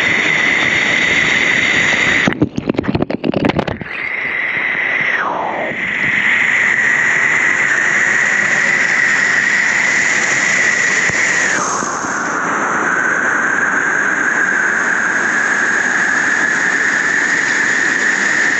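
Rushing water echoing in a river cave, with a steady high-pitched whine over it that twice slides down in pitch. About two to four seconds in, the sound turns choppy and gurgling, with splashing.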